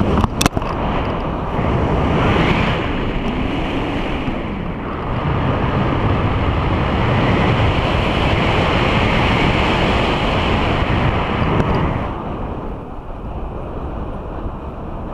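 Wind rushing over an action camera's microphone as a tandem paraglider flies through steep banked turns. It strengthens about two seconds in and eases near the end, with a sharp click just after the start.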